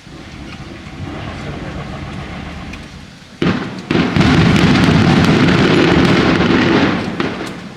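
Fireworks going off: a rumbling volley that builds, then two sharp bangs about three and a half seconds in, followed by a dense stretch of rapid crackling bursts for about three seconds before it fades.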